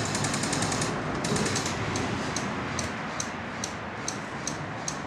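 Airsoft guns firing. The first two seconds hold two rapid full-auto bursts of sharp clicks; after that come single shots at about two or three a second.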